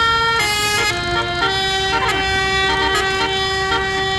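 Telolet basuri bus horn playing a tune: several horn tones sound together and step from note to note, with a quick downward slide about two seconds in.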